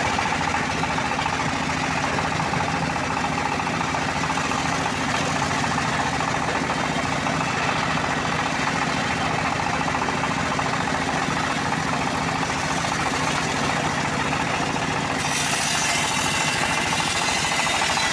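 Engine-driven homemade bandsaw mill running steadily. About 15 seconds in, the blade cuts into the teak log again and the sound turns brighter and hissier.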